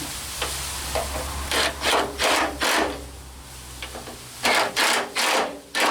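Short rasping strokes of a hand tool working on metal truck parts, in two runs of about four strokes each, roughly three a second, over a low steady hum.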